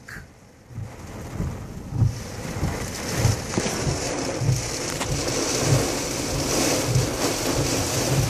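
Heavy wind-driven rain pelting a car's windows and body, heard from inside the cabin during a severe thunderstorm. It swells in about a second in and then holds as a dense steady hiss, with uneven low thumps underneath.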